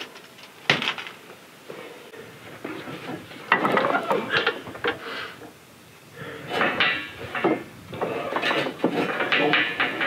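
Irregular metallic clanking, scraping and rattling of tools and iron hardware on a sawmill carriage while the shaft couplers and headblocks are being adjusted, in several clusters that come loudest from the middle on.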